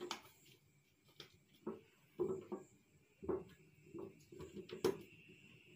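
Chopped bintaro fruit being tipped and shaken out of a metal biscuit tin into a metal cooking pot: a string of soft, irregular knocks and thuds, with one sharper click near the end.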